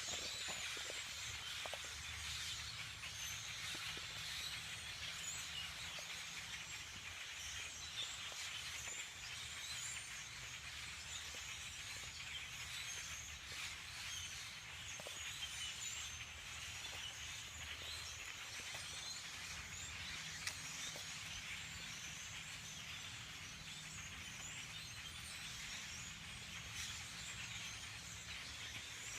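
A dense chorus of many birds chirping and chattering at once, the sound of a flock of hundreds in the trees, with a steady low rumble underneath.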